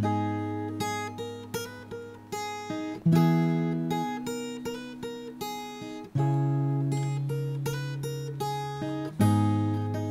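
Relaxing background music on a plucked acoustic guitar, picked notes over a deep note that changes about every three seconds.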